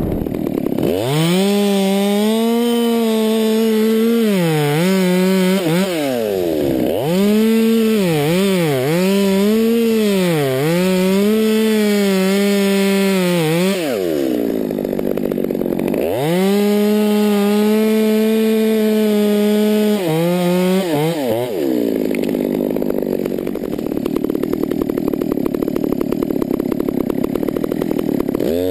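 Two-stroke chainsaw, a Stihl 200T top-handle saw, cutting wood at full throttle in three long bursts. In the first two bursts the engine pitch dips again and again as the chain loads up in the cut. The saw drops to idle between the bursts and for the last several seconds.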